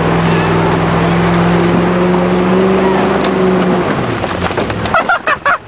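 Pickup truck's engine running hard under load as it tows a boat through mud, held at steady revs, then easing off about four seconds in. Near the end, people briefly shout and whoop.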